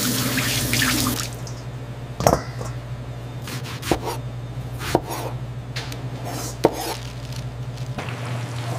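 Tap water running into a steel sink for the first second or so, then a chef's knife chopping on a cutting board: several sharp strokes about a second apart, over a steady low hum.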